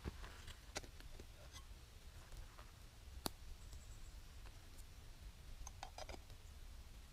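Faint, scattered light clicks and clinks of metal camp gear being handled, with a single sharp click a little past three seconds and a cluster of clicks near the end as a small metal kettle is taken off a wire grill; a steady low rumble lies underneath.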